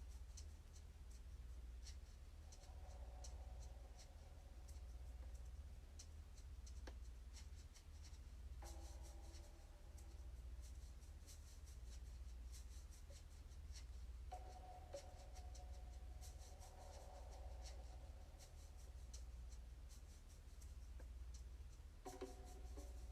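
Faint sustained notes from a Sound of Soul device, music generated in real time from a person's heartbeat. The notes come in as a few separate long phrases over a steady low hum, with light scratchy ticks.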